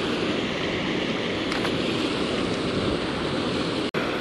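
Steady rush of water pouring over a spillway's low dam, with the sound cutting out for a moment near the end.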